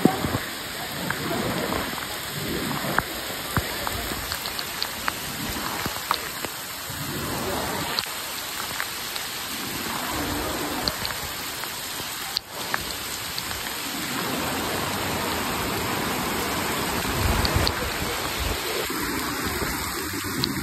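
Heavy monsoon rain pouring down onto a waterlogged road and pavement: a steady hiss with many scattered sharp taps of drops.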